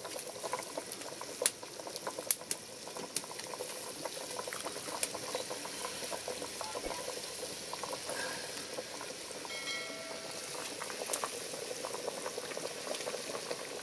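Chicken soup boiling hard in a pot over a wood fire: a steady bubbling, with scattered small clicks and taps.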